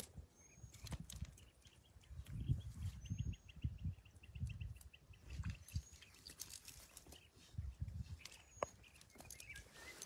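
Soft low thumps and rustling as a nylon mesh fishing net is pulled and gathered by hand over dirt. Behind it, small birds give a few short high chirps, and a fast run of high ticks, about eight a second, goes on for a few seconds in the first half.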